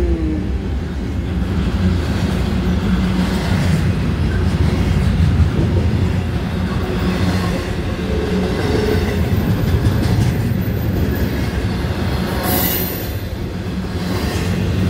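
CSX double-stack intermodal freight train running past at speed: the container well cars roll by with a steady heavy rumble of steel wheels on rail.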